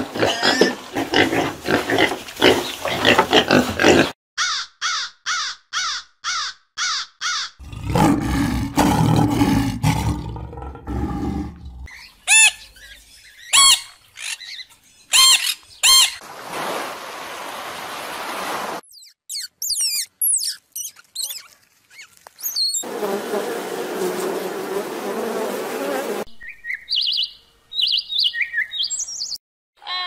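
A series of short animal-call clips cut one after another: pigs squealing at the start, a deep roar around the middle, then whistles and chirps from birds, among them African grey parrots.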